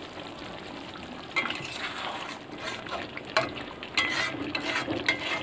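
A metal spoon stirring a thick simmering curry in a metal kadai, with scraping and clinking against the pan starting about a second and a half in, over a steady low sizzle of the simmering gravy.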